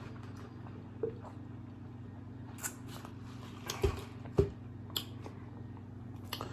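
Close-up eating sounds from a man chewing birria tacos: a handful of short wet mouth clicks and smacks, the loudest about halfway through, over a steady low hum.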